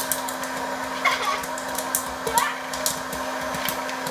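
Hot-air popcorn maker running: a steady fan-and-heater whir with a low hum, and scattered sharp pops as kernels burst inside.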